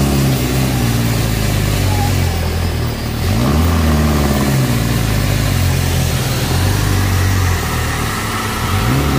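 Heavy truck diesel engine of an Isuzu Giga tractor unit running hard under load on a steep climb, pouring black smoke. Its revs climb about three seconds in, settle, and climb again near the end.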